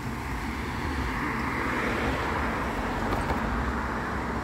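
Road traffic: a car driving along the road, its tyre and engine noise swelling after about a second, over a steady low rumble.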